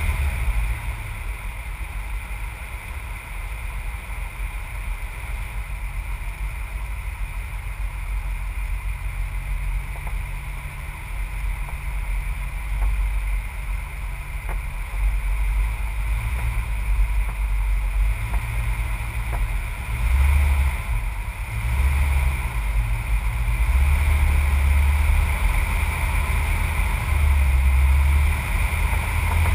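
Vehicle engine running with a low, uneven rumble as it drives along a dirt track, with steady wind and road noise; the low rumble swells louder in surges over the second half.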